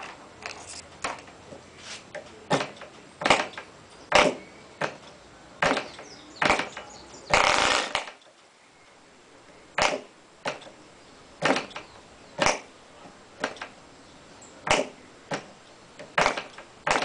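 McCoy 19 two-stroke glow model engine being started by flicking its propeller by hand: a series of sharp, short pops about once a second, irregular. About seven seconds in comes one longer, louder burst lasting about a second.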